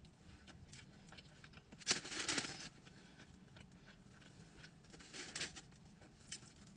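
Close-miked eating sounds from someone eating a turkey-and-stuffing sub: small mouth clicks and smacks, with a louder noisy burst about two seconds in and a shorter one about five seconds in.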